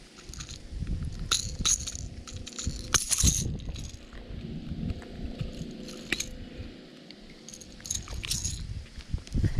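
Scattered light clicks and clinks, some in quick clusters, over low rumbling handling noise.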